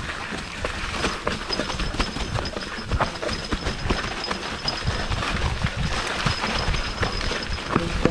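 Mountain bike ridden fast over a dry dirt trail: tyres crunching over dry leaves and loose dirt, with the bike rattling and knocking over bumps. A thin high steady tone joins about three seconds in.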